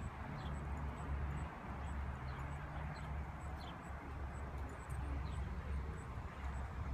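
Open-air ambience: a steady low rumble, with a small bird's short falling chirp repeating roughly once a second.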